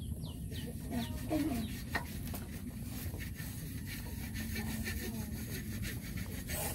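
Short animal calls over a steady low background noise, the clearest a single falling call about a second and a half in.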